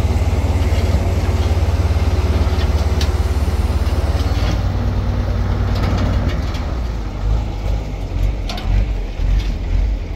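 Heavy truck engine running with a deep, fast-pulsing rumble. About seven seconds in, the rumble turns uneven and choppy, with a few sharp clicks over it.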